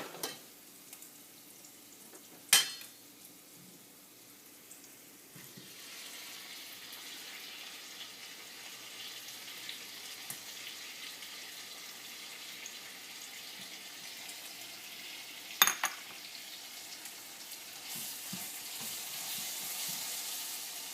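Chopped tomatoes frying in hot oil in a pan: a steady sizzle that starts about five seconds in and grows louder near the end, with a few sharp clinks of a utensil against the pan, twice loudly.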